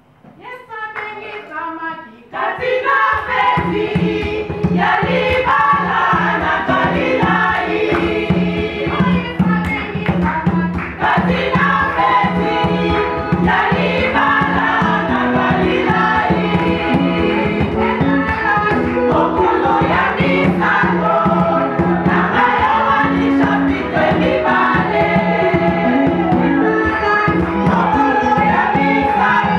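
Women's choir singing a gospel song in chorus. It starts softly, and about three seconds in the full choir and a steady beat come in.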